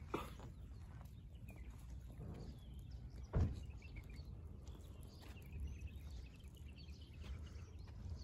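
A goat herd grazing and walking over stony ground, against a low steady rumble. There is one short, loud sound about three and a half seconds in.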